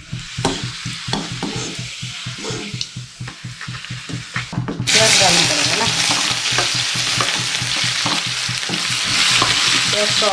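Papad frying in hot oil in an iron karahi, with a spatula scraping and clicking against the pan. About five seconds in, the sizzling jumps sharply louder and stays loud as chopped onion goes into the hot oil.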